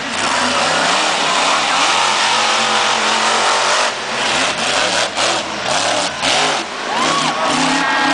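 Max D monster truck's engine revving hard, its pitch rising and falling again and again as the throttle is worked. A few short, sharp noises break in about halfway through.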